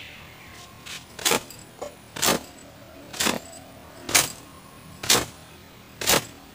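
A thin cotton towel slapping against long wet hair, six sharp whacks about a second apart, as the hair is beaten dry.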